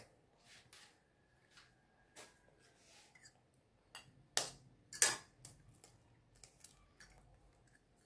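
Eggs being cracked over a small bowl: scattered light clicks of eggshell and a fork, with two sharper taps about four and a half and five seconds in as the second egg is broken.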